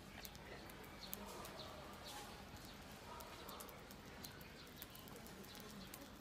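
Faint crackling of burning matchsticks: scattered sharp clicks as match heads and wood catch in small flames.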